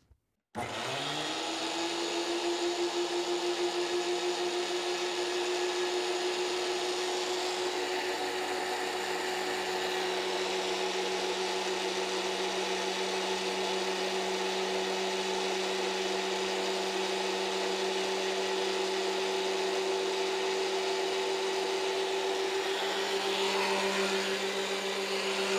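DeWALT DW735 thickness planer switched on about half a second in, its motor and cutterhead spinning up to speed within a second and then running at a steady high hum, idling with no board being fed.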